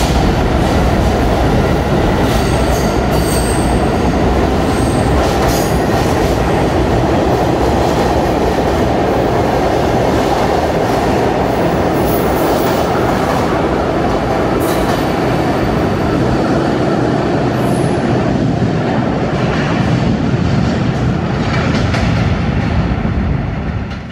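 R68 subway train running on the rails: a loud, steady rumble with a few brief high-pitched wheel squeals, fading out at the very end.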